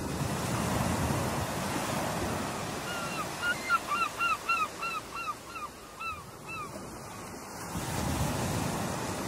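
Ocean surf breaking and washing, swelling at the start and again near the end. In the middle a bird gives a rapid series of about a dozen short, arched calls, roughly three a second, fading out toward the end of the run.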